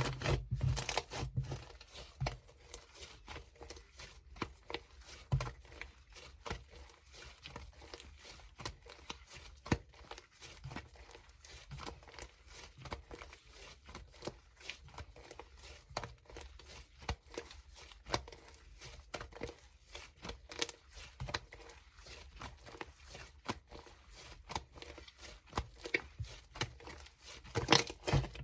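Slime being squeezed and stretched by hand, giving irregular sticky clicks and crackles, busiest near the start and again near the end.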